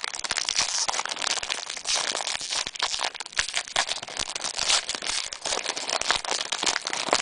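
Trading card pack wrapper crinkling as it is handled and opened, with dense, irregular crackles throughout.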